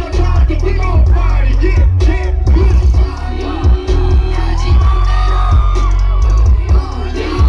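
Loud hip-hop music with a heavy, repeating bass beat, with voices shouting over it.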